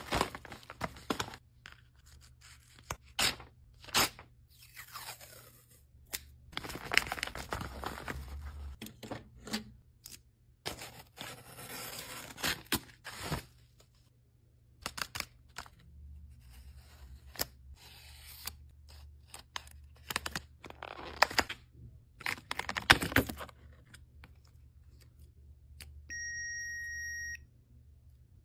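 Plastic packaging handled and torn open: crinkling, tearing and scraping of a plastic mailer and a blister pack, with many sharp clicks. Near the end, a single steady electronic beep about a second long from a Tamagotchi virtual pet.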